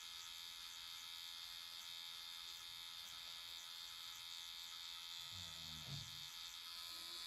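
Permanent-makeup tattoo machine buzzing faintly and steadily with a high whine as it needles colour into the lips. A brief low sound comes about five and a half seconds in.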